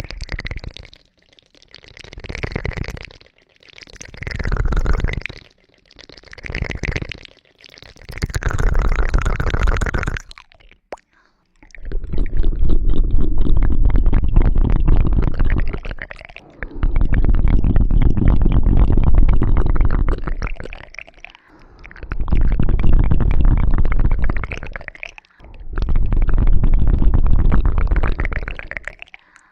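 ASMR ear-cleaning sounds made right against the microphone: scratching and rubbing in separate strokes. First five short, brighter strokes of about a second each, then four longer, louder passes of about four seconds each with a deep rumbling crackle.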